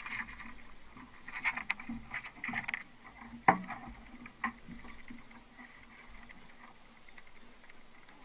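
Knocks and rattles from a rowing shell and its metal riggers as the crew lift it and roll it over, picked up through a camera mounted on the hull. A cluster of clatter in the first seconds, a single sharp knock about three and a half seconds in and a smaller one a second later, then quieter.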